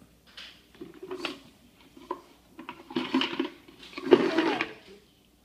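Small toy objects clattering and rattling inside a jar as a child rummages through it. There are scattered clicks, and two louder stretches of clatter about three and four seconds in.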